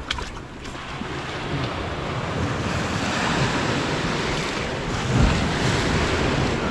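Surf breaking and washing around the hull of a small open boat in shallow water, with wind buffeting the microphone; a low thump about five seconds in.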